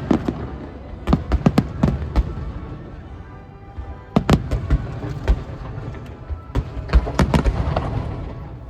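Aerial fireworks shells bursting during a show's grand finale: clusters of sharp bangs and crackles with a quieter gap in between, over a low rumble, and music playing underneath.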